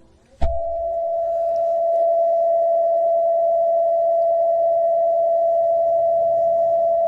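A single steady electronic alert tone starts abruptly after a click about half a second in and holds unchanged: the attention tone that opens a mock Emergency Alert System broadcast.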